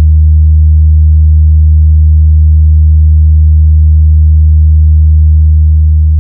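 Very loud, steady deep sub-bass tone from a DJ speaker-check remix, one held electronic bass note with a few overtones, made to test and show off a large sound system's bass. It eases off slightly near the end.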